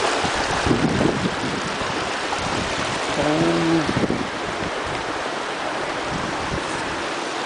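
Steady rushing of water running in the water mill's channel, with a few handling knocks about a second in and a brief low hum a little past halfway.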